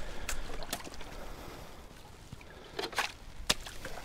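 Metal detector search coil sliding and knocking on thin ice over a flooded puddle, with a few sharp knocks and cracks among a low scraping, sloshing noise.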